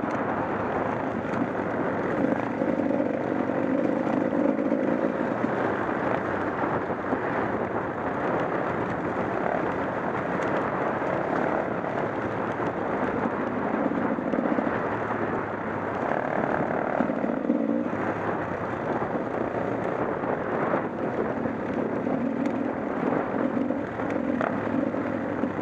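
Dual-sport motorcycle engine running at low speed on a rough gravel road, its note shifting with the throttle, under a steady rush of road and wind noise.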